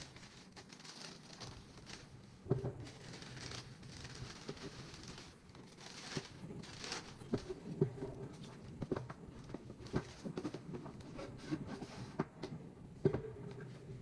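Tissue paper rustling and crinkling as it is folded back inside a shoebox, then a run of soft knocks and taps as the sneakers and a cardboard insert are handled and set down.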